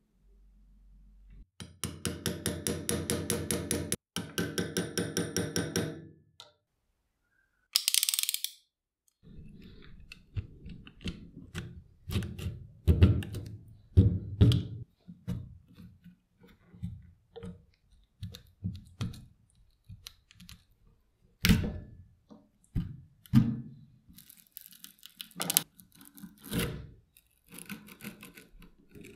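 Hand-tool work on an old torque wrench's handle: a utility-knife blade cutting and scraping at the cracked old grip covering, then a screwdriver prying it apart. Irregular knocks, clicks and scrapes of metal against the handle and vise. Before that, a fast rhythmic pattern runs for a few seconds.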